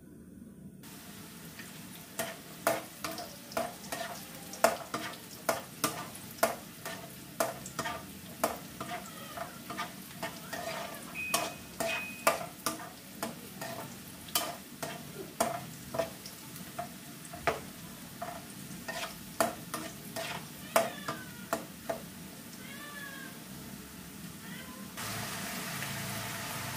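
Carrot strips frying in oil in a nonstick wok, sizzling steadily while a slotted spatula stirs them, striking the pan about once or twice a second. About 25 seconds in the sizzle turns suddenly louder as sliced potatoes go into the hot oil.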